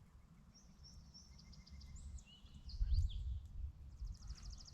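Small songbirds chirping with short high whistles, and a fast, high, even trill starting about four seconds in. A low rumble about three seconds in, likely wind or handling on the microphone, is the loudest moment.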